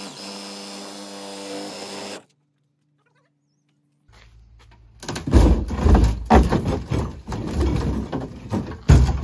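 DeWalt cordless reciprocating saw running at a steady pitch, cutting through the wooden hull of the dinghy; it stops suddenly about two seconds in. After a short silence, loud irregular low rumbling and knocks take over near the end.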